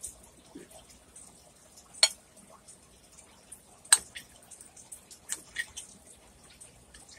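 Metal knife and fork cutting a gravy-covered hamburger steak on a plate. The cutlery strikes the plate with two sharp clinks, about two and four seconds in, then a few lighter taps and soft wet ticks.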